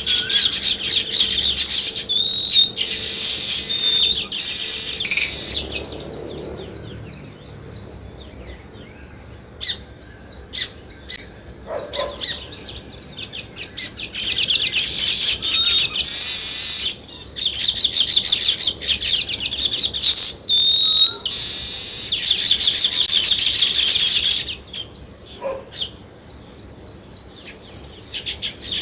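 A group of small birds chirping and chattering in fast, high-pitched bouts of several seconds, with quieter stretches of scattered single chirps between them, one about a quarter of the way in and another near the end.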